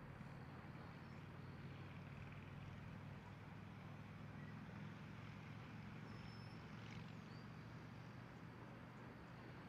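Faint, steady low engine rumble, with a few faint short high chirps.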